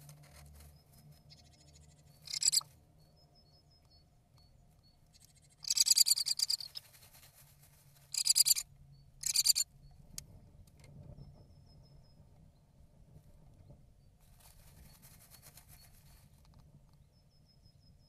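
Great tit rustling and scratching in the dry moss of its nest cup, in several short, loud bursts, the longest about a second, as it shapes the nest.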